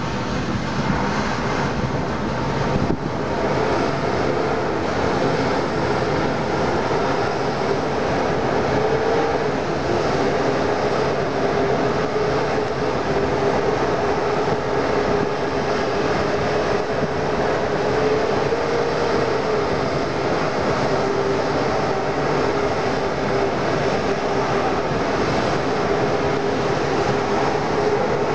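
Fire engine's diesel engine running steadily, a continuous rumble with a steady mid-pitched whine that lifts briefly twice.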